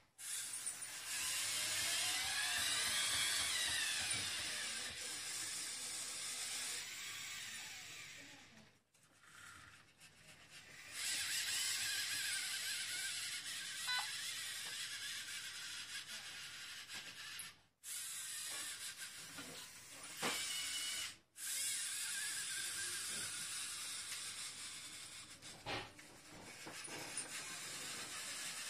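LEGO Mindstorms EV3 motors whirring through the LEGO gear trains of a six-axis LEGO robotic arm, with the motor whine rising and falling in pitch as the joints speed up and slow down. The whirring stops briefly a few times as the arm pauses between moves.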